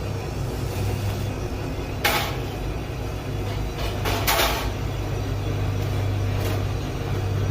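Car engine idling with a steady low hum. Two short bursts of hiss cut in, about two seconds in and again about four seconds in.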